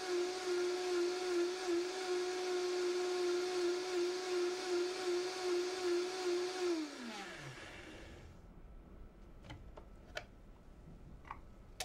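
Vitamix blender motor running at high speed with a steady whine while blending a frozen coffee drink with ice. About seven seconds in it is switched off and the whine falls in pitch as the motor spins down. A few faint clicks follow.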